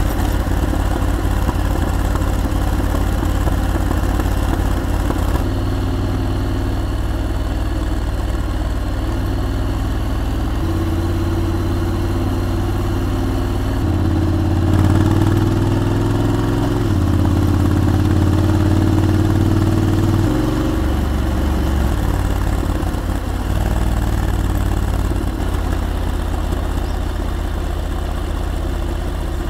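Honda X-ADV's 745 cc parallel-twin engine running under way. Its note holds steady for stretches and changes pitch in steps several times.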